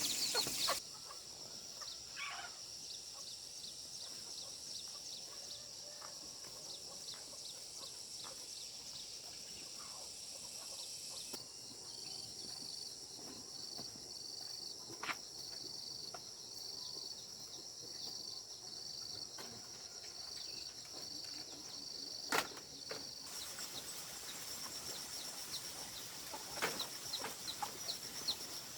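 Quiet farmyard ambience: chickens clucking, over a steady high-pitched whine with short repeated chirps, and a few sharp clicks.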